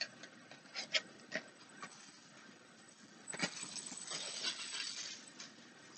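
Small boxes and packaging being handled: a few light clicks and taps, a knock about three seconds in, then a couple of seconds of rustling.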